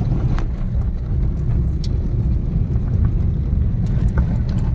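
Car driving on an unpaved dirt and gravel road, heard from inside the cabin: a steady low rumble with scattered small clicks and rattles.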